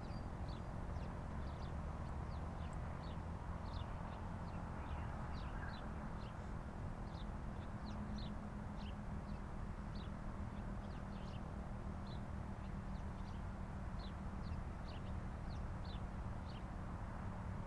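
Small birds chirping over and over, short high notes several times a second, over a steady low background rumble.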